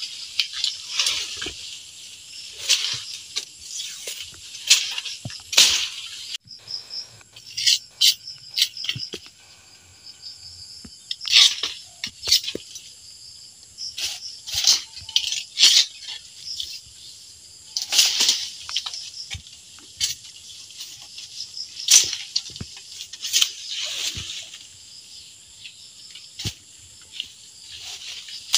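Leafy brush and stems rustling and snapping in irregular bursts as they are pulled and hacked with a machete, with sharp cracks and chops among the rustling.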